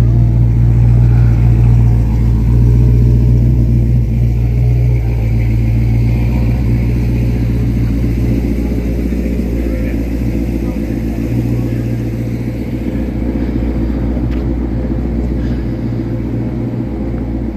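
A car engine idling close by: a steady low rumble that fades gradually over the second half.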